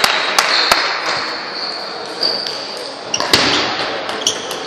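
Table tennis ball ticking: several quick bounces in the first second. After a pause there are sharp hits of ball on bat and table about three seconds in as a rally starts, with the echo of a large sports hall.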